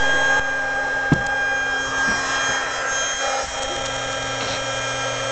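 Red handheld vacuum cleaner's small electric motor running with a steady whine, with a short knock about a second in.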